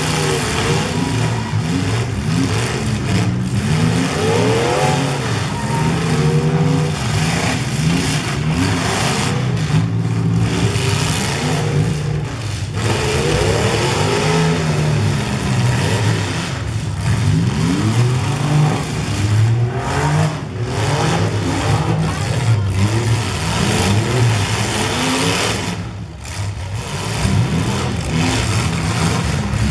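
Several full-size demolition derby cars' engines revving up and easing off over and over, their pitches rising and falling over one another.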